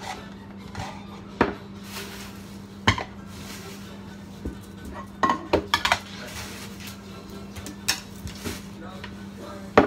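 Kitchen clatter at a stainless steel sink: separate sharp knocks and clinks of a metal bowl and utensils, several in quick succession about halfway through, with plastic-bag crinkling as vegetables are handled. A faint steady low hum underneath.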